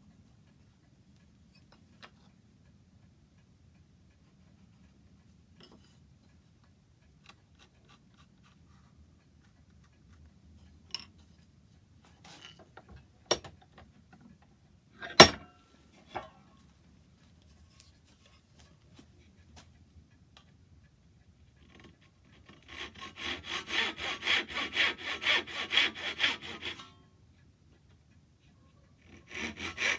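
A few knocks, one of them sharp, as the oak workpiece is handled. Then a hand saw cuts dovetails in oak with quick even back-and-forth strokes, about two to three a second; it pauses briefly and starts again near the end.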